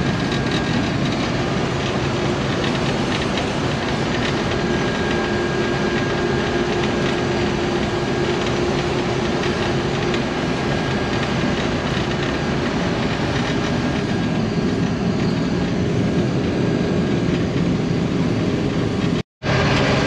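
Case IH 1480 combine running steadily while cutting wheat: a continuous mechanical rumble with a faint steady whine. It breaks off for an instant near the end.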